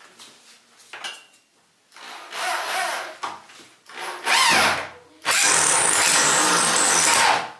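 Power drill driving a concrete screw through a wooden shelf upright into a pre-drilled hole in a concrete wall, run in bursts: a short run, a second that spins up with a rising whine, then a longer steady run of about two seconds near the end. The screw is going in hard, high on the wall where little weight can be put behind the drill.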